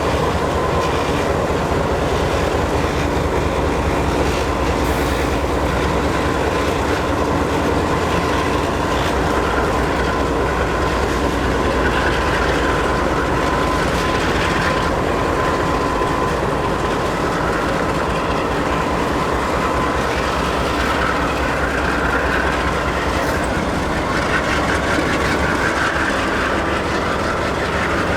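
Pan Am Railways freight train rolling past: a steady rumble and the clickety-clack of wheels over the rail joints, with a thin steady whine running underneath.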